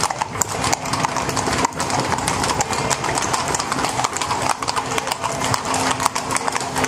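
Hooves of carriage horses clip-clopping on stone paving as pairs of horses pull carriages close past, many overlapping strikes in a quick, uneven patter.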